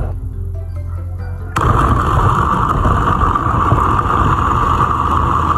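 Miyako electric blender motor starting abruptly about a second and a half in and then running steadily and loudly, grinding raw chicken pieces in its glass jar.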